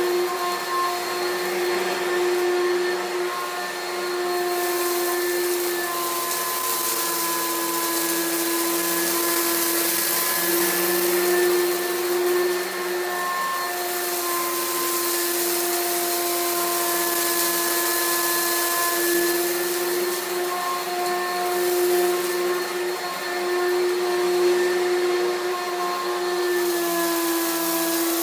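Oreck XL Pro Plus upright vacuum cleaner running steadily with a motor whine over an airflow hiss, its pitch wavering slightly as it is pushed back and forth over carpet picking up debris.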